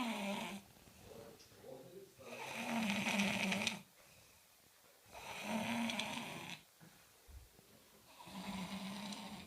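A person snoring in a steady rhythm: a loud, rough snore about every three seconds, each lasting about a second and a half, with quieter breathing in between.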